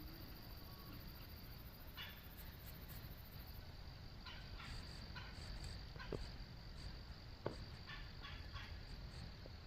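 Wild turkeys calling in the distance: a scattering of short notes in small groups, with a couple of sharp clicks partway through.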